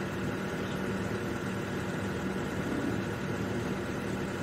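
A steady mechanical hum over an even hiss, like an engine or motor running at idle, unchanging throughout.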